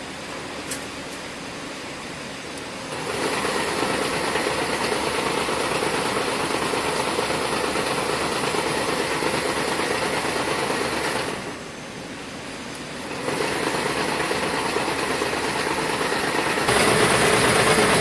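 Wire harness braiding machine running, braiding sleeving over a harness, with a steady even rattle. It starts about three seconds in, stops briefly around eleven seconds, then runs again and gets louder near the end.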